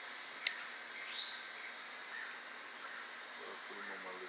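Steady high-pitched chorus of night insects, with one short click about half a second in and faint voices near the end.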